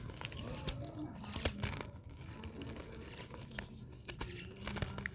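Dried dirt textures being crumbled by hand: an irregular run of crackles, crunches and small sharp snaps as the hardened pieces break apart.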